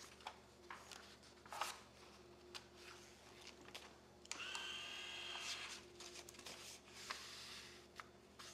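Faint paper rustles and light clicks as pages are handled on the page arms of a PageFlip Lite automatic page turner. About four seconds in, a button press sets its motor whirring with a steady high whine for about a second and a half as it turns a page.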